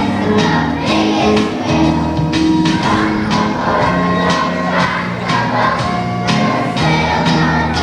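Group of young children singing together in unison over instrumental accompaniment with a steady beat.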